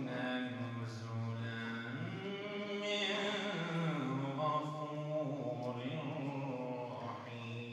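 A man's voice reciting the Quran in melodic chant (tajwid), drawing out long held notes that slide slowly between pitches.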